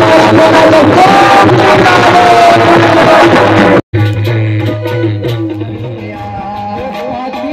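Loud live Indian folk devotional music with hand-drum strokes and held melody tones. It cuts off abruptly about four seconds in and gives way to quieter music with a man singing.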